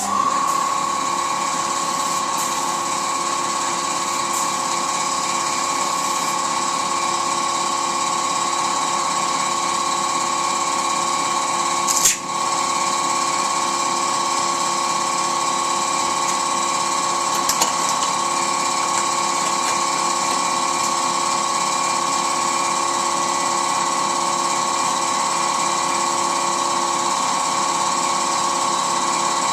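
A power tool switches on and runs steadily with a high, even whine. There is a brief sharp knock about 12 seconds in.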